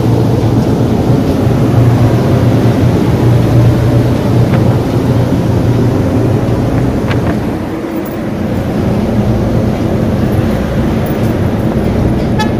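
A car ferry's engines running with a steady low drone, heard from the upper deck.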